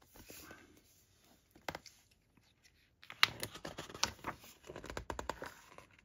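Pages of a glossy-paper hardback book being handled and turned. A soft rustle at first and a single tap, then about three seconds of quick paper rustles and clicks as the pages are leafed through.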